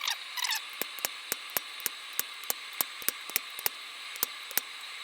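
Light, even hammer taps on hot steel, about three a second, over a steady hiss.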